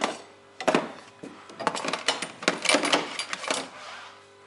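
Small metallic clicks and scratches from cleaning a wire terminal taken out of a connector, which is in poor condition. The clicks come in short irregular runs, busiest in the second half.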